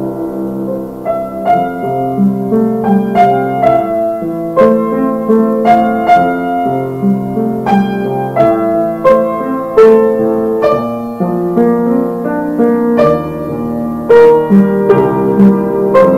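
Piano music: a melody of struck notes over held lower chords.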